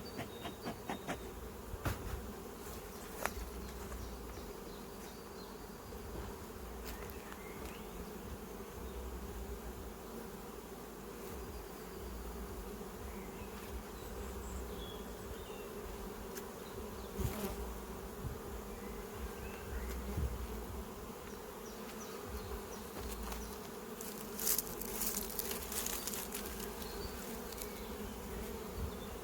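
Honeybees buzzing steadily in a dense, even hum at the hive. Sharp clicks and knocks come now and then, with a cluster of them about four fifths of the way through.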